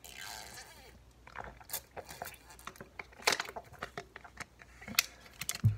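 A person taking a sip of a drink, a soft slurping hiss lasting under a second, followed by scattered small clicks and knocks of things being handled and set down.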